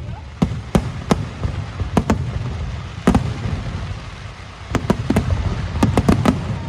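Aerial fireworks display: sharp bangs and crackles at irregular intervals, bunching into a quick run of several near the end, over a steady low rumble.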